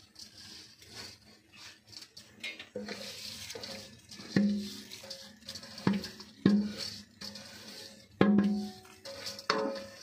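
A steel bowl knocked against the rim of an aluminium cooking pot about six times, from about three seconds in, each knock ringing briefly at the same pitch, as soaked rice is shaken out into simmering stock. A soft hiss comes before the knocks.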